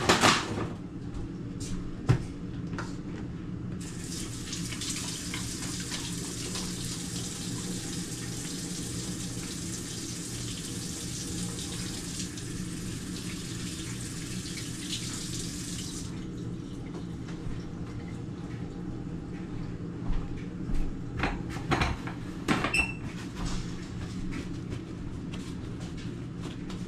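Kitchen faucet running into a sink for about twelve seconds, turned on about four seconds in and shut off abruptly. A steady low hum runs underneath, with a few sharp knocks and clatters before and after.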